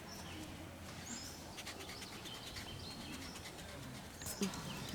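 Small birds chirping faintly here and there, with short high calls, over a soft steady background hiss. A brief knock sounds near the end.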